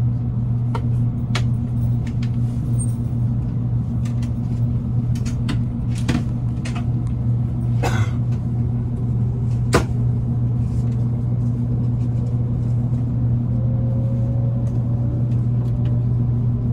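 Interior sound of a 787-series electric train moving off: a steady low hum with a few sharp clicks, and a faint whine that rises slowly in pitch in the second half as it gathers speed. The departure is very quiet.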